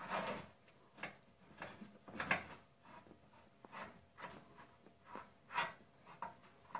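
Faint scraping and rubbing of a paintless-dent-repair hook rod working on the inside of a car's steel front wing, about a dozen short strokes at irregular intervals as small dents near the panel edge are pushed up.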